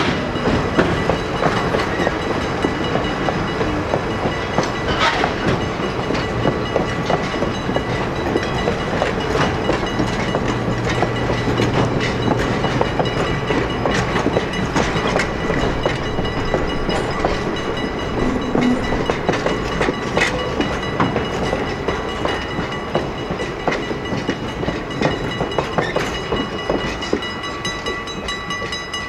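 Railroad passenger coaches rolling past over a grade crossing, their steel wheels clacking over rail joints and the crossing. A steady crossing-signal bell rings throughout and is left on its own as the last car clears near the end.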